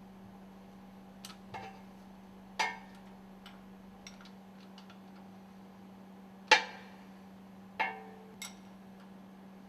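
A handful of sharp metallic clinks with a short ring, from a spanner and bolts being worked loose and set down while the stuffing box assembly is unbolted. The loudest clink comes about two-thirds of the way through, over a steady low hum.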